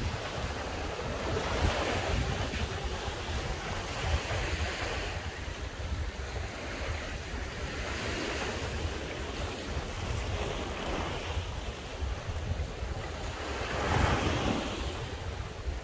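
Sea waves washing onto the shore, swelling and fading about every three seconds, the biggest swell near the end, with wind rumbling on the microphone.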